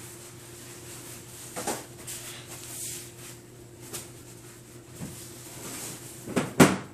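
Knocks and clatter of things being handled on a kitchen counter over a faint steady hum: a thump about a second and a half in, a few light ticks, then two sharp, loud knocks close together near the end.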